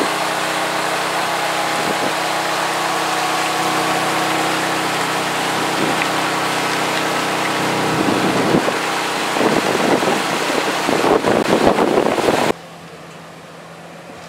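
Vehicle engine idling steadily while water sprays and splashes against the steel sides of an elephant transport truck's crate. The splashing grows louder and more uneven in the last few seconds, then the sound drops off suddenly to a quieter background.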